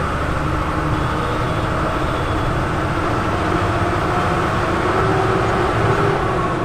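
Bus engine running and road noise, heard from inside the cabin as the bus drives along; a steady rumble and hiss throughout.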